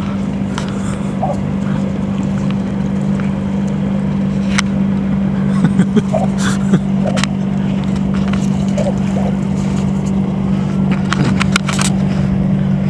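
Steady low drone of a running motor, with a few faint clicks scattered through it.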